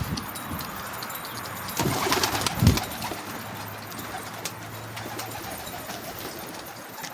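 Domestic pigeons cooing, loudest about two to three seconds in.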